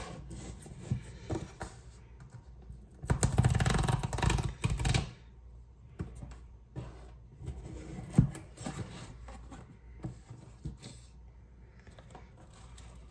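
Paperboard packaging handled on a wooden tabletop. A denser rubbing and sliding of cardboard comes about three to five seconds in, with scattered light taps and clicks around it as the box is opened and its flaps folded out.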